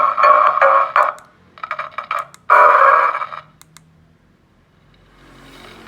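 Wireless megaphone siren unit playing its stored sounds through its small horn speaker, thin and tinny. The sound stops and starts in three short bursts with sharp clicks between them, then falls quiet a little past halfway.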